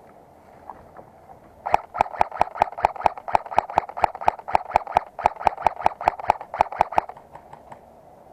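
Airsoft gun firing a rapid string of roughly two dozen evenly spaced shots, about five a second, for about five seconds, then stopping.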